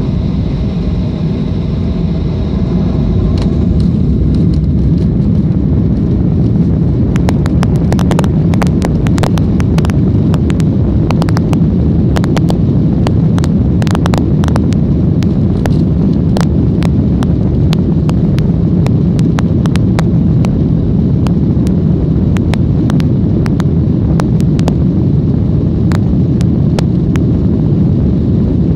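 Airliner taking off: a loud, steady rumble of engines at takeoff power, swelling slightly in the first few seconds, with many sharp clicks and rattles from about seven seconds in.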